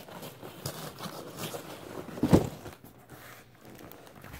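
Cardboard box and packing being handled and torn open: irregular rustling, scraping and small clicks, with one louder thump a little past halfway.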